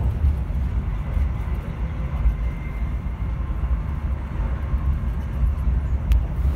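Passenger train running at speed, heard from inside the carriage: a steady low rumble of wheels and running gear on the track, with a faint thin whine midway and a single sharp click about six seconds in.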